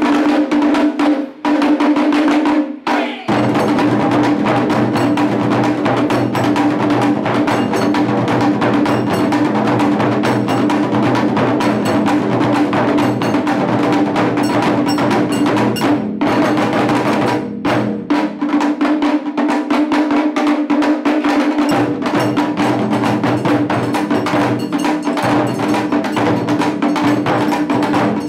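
Taiko drum ensemble playing fast, continuous strokes: sharp, high-pitched shime-daiko with large nagado-daiko barrel drums. There are short breaks about one and three seconds in, and the deep drums drop out for a few seconds after the middle.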